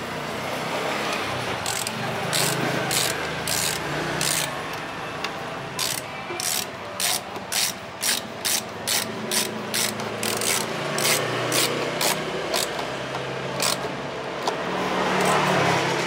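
A screwdriver turning a screw in a motorcycle's plastic side fairing, making repeated ratchet-like clicks, at first in short runs and then steadily about two a second. A louder rustle of handling comes near the end.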